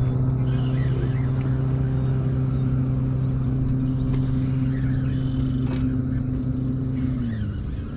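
Bow-mounted electric trolling motor on a fishing kayak running with a steady hum. It winds down in pitch and stops about seven seconds in.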